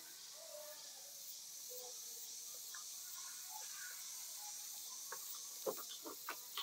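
Faint outdoor ambience: a steady high hiss with a few faint, short chirps. Near the end come several sharp taps and clicks from a plastic fork working in a cup of instant noodles.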